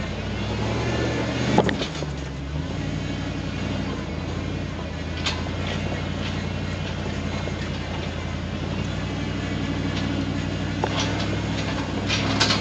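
1994 Ford F250 pickup's engine running steadily while the truck drives a rough, rutted dirt road, with occasional knocks and rattles from the body and suspension over the bumps.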